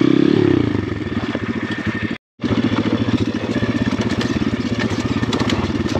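Dirt bike engine running on a trail ride, revving up and easing off in the first second, then running steadily at low revs. The sound drops out completely for a moment about two seconds in.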